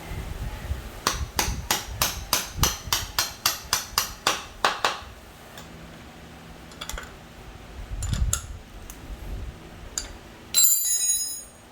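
Metal tool work on the scooter's front wheel: a run of about a dozen sharp, evenly spaced metallic clicks, roughly three a second. A few scattered knocks follow, and then a short ringing metal clatter near the end.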